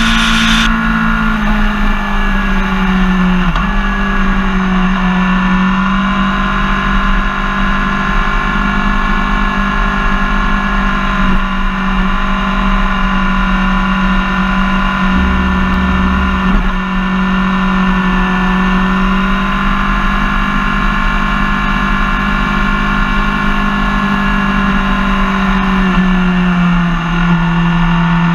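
Suzuki GSX-R sport bike's inline-four engine running at a steady pitch while being ridden, with its pitch dipping slightly about three seconds in and again near the end.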